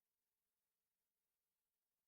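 Near silence: a digital gap between songs.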